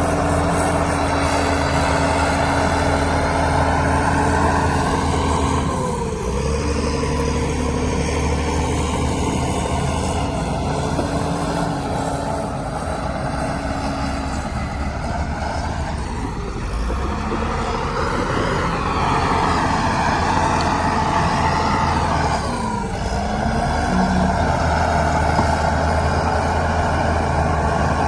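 Heavy diesel earthmoving machinery running steadily under load, the engine note dipping and recovering about a fifth of the way in and again about four-fifths of the way through.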